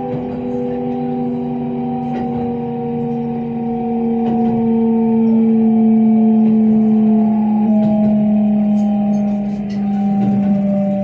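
Kintetsu limited express electric train's traction motors whining as the train brakes for a station stop, heard from inside the car. The whine's pitch falls slowly and steadily.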